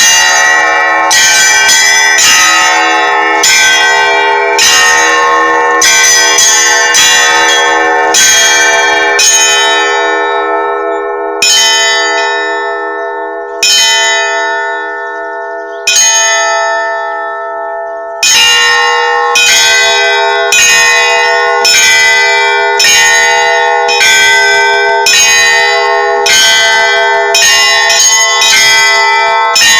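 Russian Orthodox church bells ringing for a feast day: several bells struck in quick, rhythmic strokes, their tones ringing on over one another. About a third of the way in, the ringing thins to three single strokes about two seconds apart, the tones fading between them, then the full peal takes up again.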